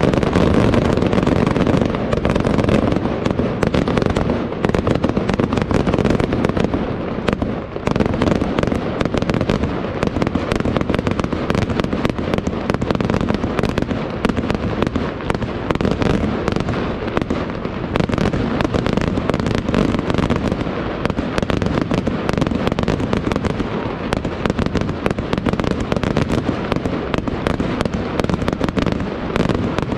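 Aerial fireworks display: a continuous, dense barrage of shell bursts with rapid bangs, many per second, and no let-up.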